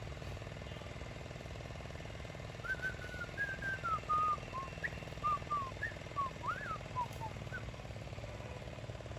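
Small engine idling steadily with an even pulse. From about three seconds in, a string of short, gliding whistle-like notes plays over it for several seconds.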